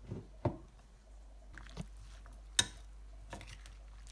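Metal spoon stirring a wet chopped salad of cucumber, tomato, onion and carrot in a glass bowl: soft squelching with several scattered clicks of the spoon against the glass, the sharpest about two and a half seconds in.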